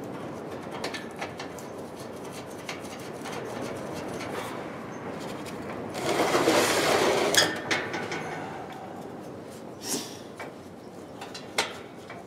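Metal kerosene heater parts being handled and fitted together: scattered clicks and knocks, with a louder scraping rustle about six seconds in that lasts a second or so.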